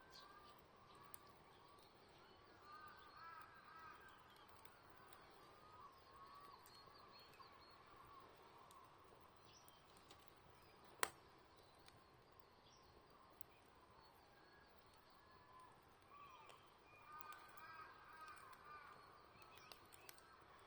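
Faint bird calls outdoors: groups of short, arching calls that come and go, busiest a few seconds in and again near the end. About halfway through there is a single sharp pop from the campfire, the loudest sound here.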